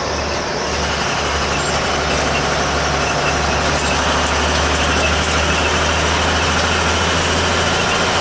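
A vehicle engine running with a steady low hum, under a hiss of road noise, heard from inside the cab.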